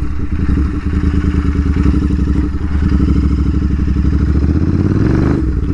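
Royal Enfield 650 parallel-twin motorcycle engine running through an aftermarket exhaust as the bike is ridden slowly. The note stays steady, with a brief shift near the end.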